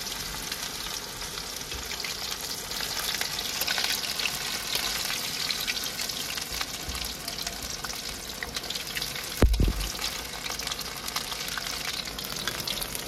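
Round slices of bitter gourd (karela), coated with arrowroot, shallow-frying in a pan with a steady sizzle and crackle. A single thump about nine and a half seconds in.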